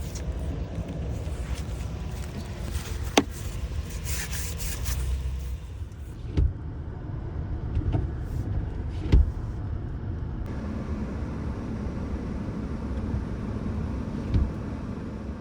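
Minivan driving, a steady low rumble of engine and road noise with a few sharp knocks and dull thumps along the way.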